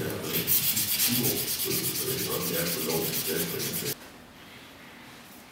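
Strip of abrasive cloth pulled rapidly back and forth around the end of a stainless steel tube held in a vise, shoeshine-style, rasping in fast, even strokes. It stops abruptly about four seconds in.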